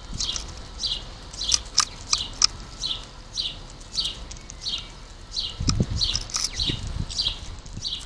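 A house sparrow chirping over and over, short falling cheeps at about two a second. A few sharp clicks come in the first few seconds, and a couple of low thuds come around six seconds in.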